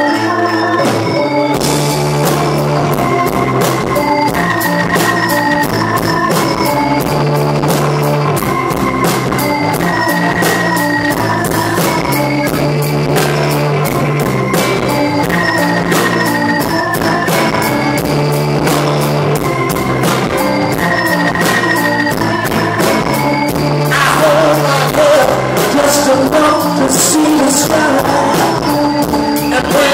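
Live rock band playing: held organ chords open, then drums with a steady beat, bass guitar and electric guitar come in about a second and a half in. A male singer's voice joins near the end.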